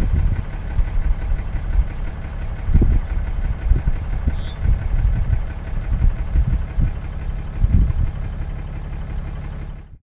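Ram 2500 pickup truck driving along a dirt road: a steady low engine and road rumble with irregular low thumps, cutting off suddenly near the end.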